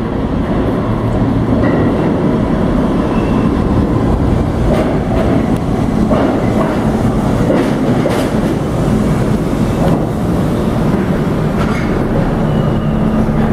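R32 subway train pulling into an underground station platform: a loud, steady rumble of steel wheels on rail with a few clacks over the rail joints.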